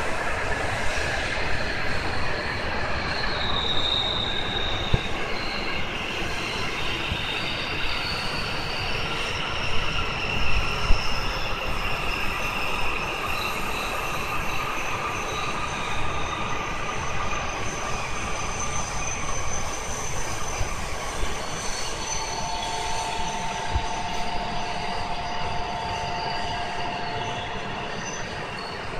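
Tohoku Shinkansen train running with a continuous rumble and high squealing tones from its wheels or brakes that waver slowly in pitch. About three-quarters of the way through, two steady mid-pitched tones join for several seconds.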